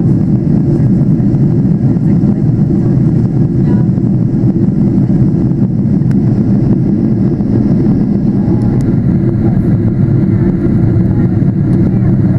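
Cabin noise of a Boeing 747-8I in descent, heard from a window seat: a steady, loud, low drone of its GEnx engines and airflow over the fuselage, unchanging throughout.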